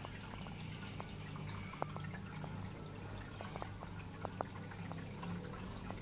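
Aquarium water bubbling and dripping: air bubbles rising and popping, with scattered sharp drip-like plinks, the loudest a little under two seconds in. A steady low hum from the tank's pump runs underneath.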